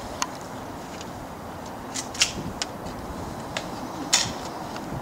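Airsoft pistol firing: about five sharp, short snaps spaced unevenly, the loudest just after four seconds in.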